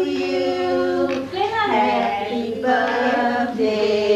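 Children singing a slow melody in long held notes, each note held for about a second before moving to the next.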